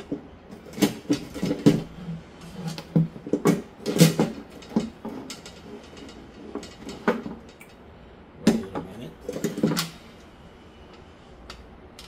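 Clicks, taps and light knocks of PC parts being handled and fitted into a computer case while a graphics card and its vertical mount are being installed. They come in irregular clusters: one in the first two seconds, one around four seconds and one near the end.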